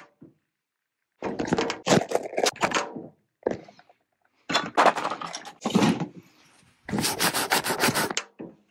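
Hand handling noise on a phone camera: fingers rubbing and scraping against the device near its microphone in four rough, scratchy bursts with short gaps between them.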